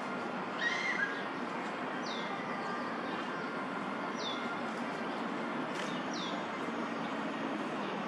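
Steady hum of city traffic, with a bird repeating a short falling call about every two seconds, and a brief louder chirp about a second in.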